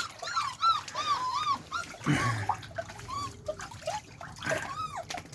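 Beagle puppies whining and squealing: many short, high, arching cries in quick succession, overlapping at times, with a brief noisy burst about two seconds in.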